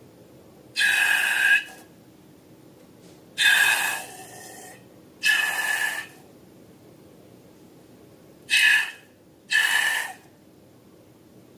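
Five short, breathy rushes of air, each under a second long, with quiet gaps between them.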